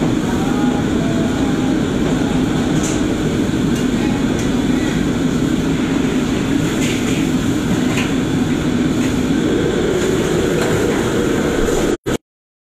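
Steady, loud noise of a commercial kitchen's row of gas wok burners and extraction hood, with a few faint metal clinks of woks and ladles. The sound cuts off suddenly near the end.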